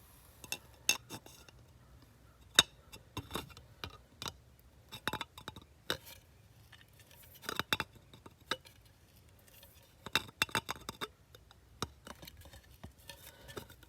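Electrical pliers clicking and clinking against the end of an aluminium turbo pipe as a bead is pressed into it: a run of sharp, irregular metal clicks.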